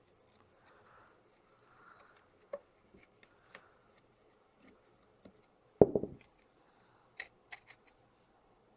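Screwdriver backing out the small screw of a rifle's metal forearm nose cap: faint scraping and light ticks of steel on steel, with one sharper knock about six seconds in and a few quick ticks after it.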